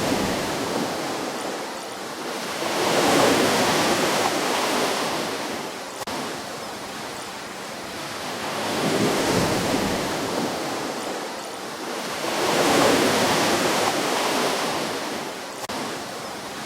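Ocean waves breaking and washing up a shore, the rushing surf swelling and fading in slow surges, three crests coming a few seconds apart.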